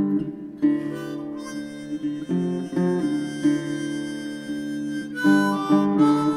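Music: strummed acoustic guitar chords with a harmonica playing sustained notes over them.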